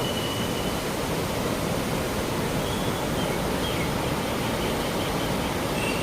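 River water rushing steadily. A faint high-pitched whine stops about a second in.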